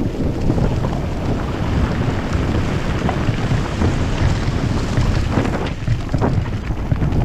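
Wind buffeting a bike-mounted action camera's microphone as a mountain bike rolls down a rocky, leaf-strewn trail, with tyre rumble and the bike knocking over stones; a few sharper knocks come near the end.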